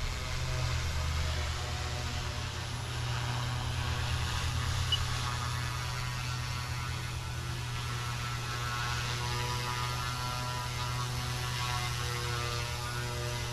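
FW200 electric RC helicopter flying at a distance: a steady low hum from its rotor with a thin motor whine above it that wavers slightly in pitch.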